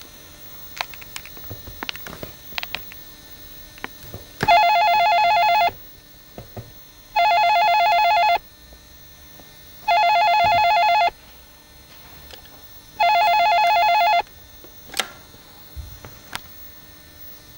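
Corded telephone ringing four times, each ring a little over a second long and about three seconds apart, then a click as the handset is lifted.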